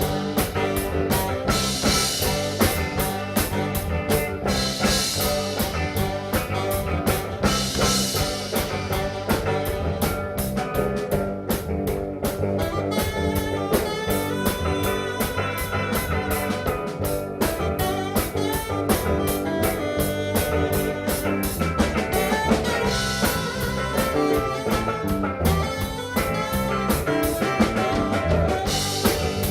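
Live band playing an instrumental break with a drum kit keeping a steady beat, no vocals.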